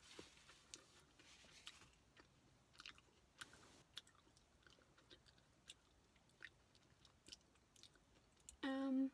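Soft chewing and scattered small mouth and spoon clicks of someone eating a berry smoothie bowl, then a short hummed "mm" near the end, the loudest sound.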